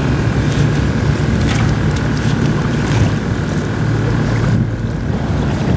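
A steady low engine drone, with scattered small clicks.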